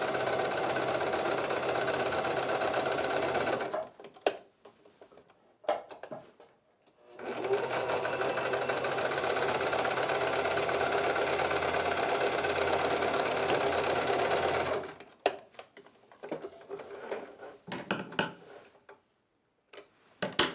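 Singer electric sewing machine running, stitching a seam through folded cotton fabric in two steady runs, about four seconds and then about seven and a half seconds. A few light clicks fall in the pauses between and after the runs.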